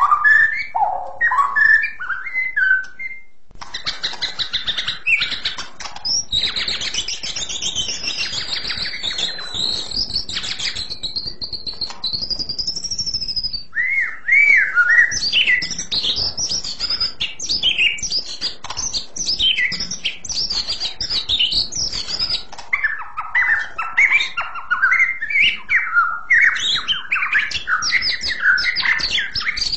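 White-rumped shama (murai batu) singing a long, varied song of clear whistled phrases. Near the middle it holds one long, high, wavering note for several seconds, then breaks into fast, tumbling runs of notes.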